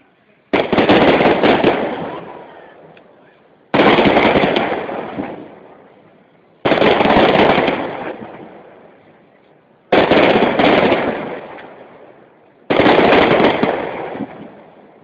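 Aerial firework shells bursting one after another: five loud bangs about three seconds apart, each fading out over two or three seconds.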